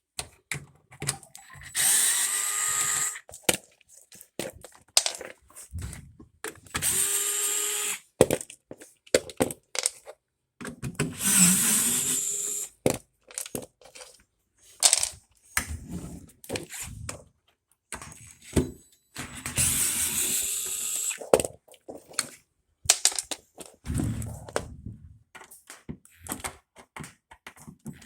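Power drill-driver running out the screws of a refrigerator's rear access panel: four short runs of a second or two each, with clicks and knocks of screws and panel handling in between.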